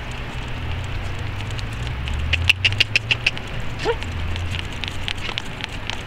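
Footsteps of a smooth collie service dog and its handler walking on pavement, with light clicks as the dog moves in its harness. A quick run of sharper clicks comes about halfway through, and a short rising chirp follows about a second later, over a steady low rumble.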